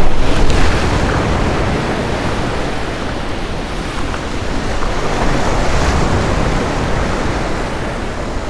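Rough surf breaking and washing over jetty rocks, loudest in the first moment, with wind buffeting the microphone.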